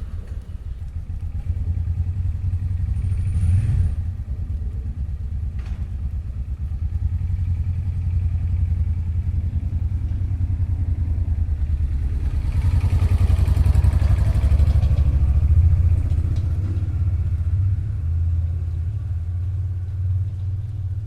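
A motor vehicle's engine running close by, a deep, steady low rumble that starts suddenly. A broad hiss swells and fades in the middle.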